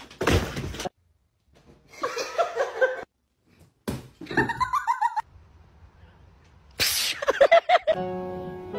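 Several short, separate bursts of voices with silent gaps between them, then music begins near the end.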